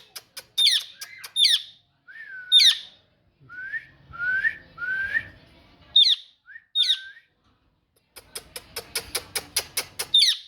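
Pet parrot calling: repeated sharp, high whistled calls that sweep downward, with lower swooping notes in the middle and a rapid run of clicks near the end.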